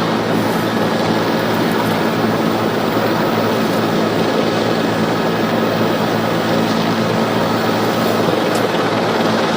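Steady aircraft noise: a constant droning hum under a wide hiss, unchanging throughout.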